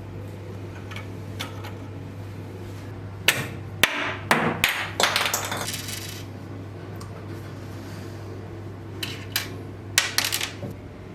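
A few clusters of sharp knocks and clatters of small hard objects, over a steady low hum.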